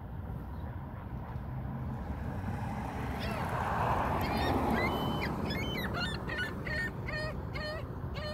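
A seagull calling in a rapid series of harsh, pitched yelps, about three a second, starting about three seconds in and sounding a little disturbed. A steady low rumble lies underneath.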